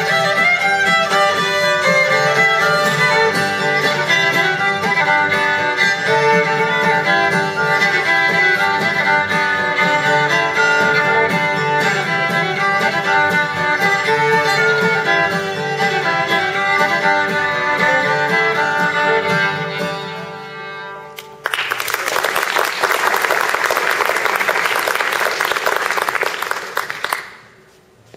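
Fiddle playing an old-time tune over acoustic guitar backing, which fades out about twenty seconds in. It is followed by about six seconds of audience applause that stops abruptly.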